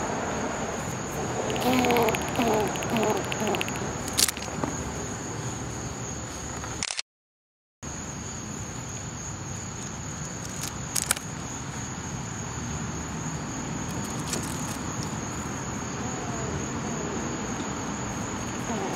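Insects trilling steadily in one high, unbroken tone. In the first few seconds there is a rapid run of clicks from an eastern grey squirrel chattering its teeth while it guards its food. The sound cuts out completely for nearly a second about seven seconds in.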